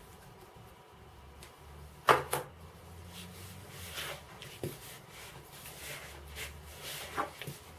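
Wooden spoon stirring crumbly currant dough in a plastic mixing bowl: a run of short, repeated scraping strokes a few per second, with two sharp knocks about two seconds in.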